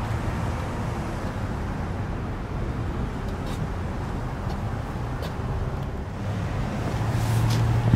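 Outdoor background noise with a steady low hum, like traffic or an engine running somewhere nearby, with a few faint clicks; the hum grows a little louder near the end.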